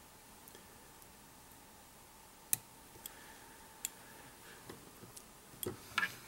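A few sharp, isolated snips of fly-tying scissors at the hook, the loudest about two and a half seconds in, with a few more soft clicks of handling near the end.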